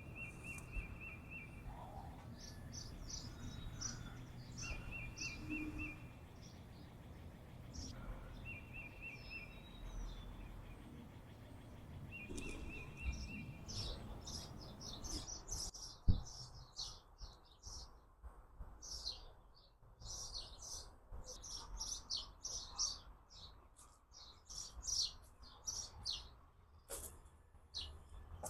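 Birds chirping and singing. In the first half a short trill repeats about every four seconds among scattered high chirps. After a single sharp click about halfway, the chirping becomes busier and high-pitched, from several birds at once.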